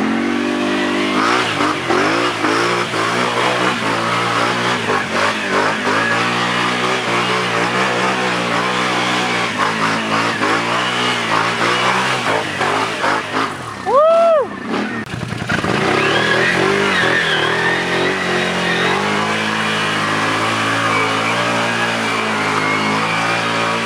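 Can-Am ATV engine running hard, its pitch rising and falling as the throttle works through mud. About fourteen seconds in, a short rising-and-falling whine cuts in. The engine drops away for about a second, then picks up again.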